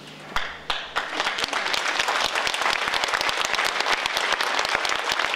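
Audience applause: two scattered claps, then the audience breaks into full, dense applause about a second in.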